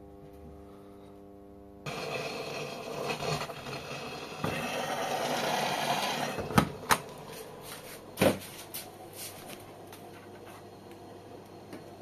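Plastic detergent dispenser drawer of an AEG front-loading washing machine being handled: a stretch of rubbing and scraping, then three sharp knocks between about six and a half and eight seconds in.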